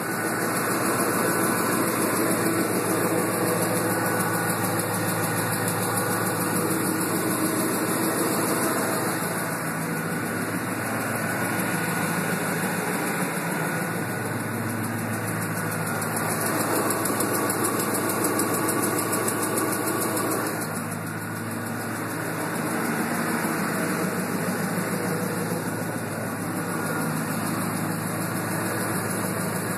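2004 Ford F-150 engine idling steadily, with the tick that a newly installed VCT (variable cam timing) solenoid has not cured.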